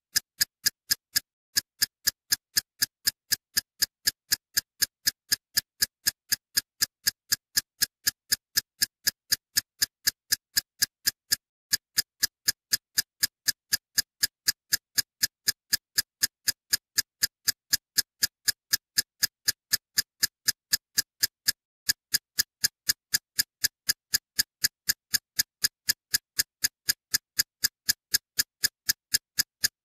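Steady, even ticking, about four sharp ticks a second, with a short break roughly every ten seconds.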